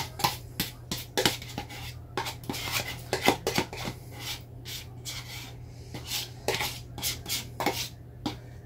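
A spoon scraping and clicking irregularly against a tub and dish as sour cream is scooped out, over a steady low hum.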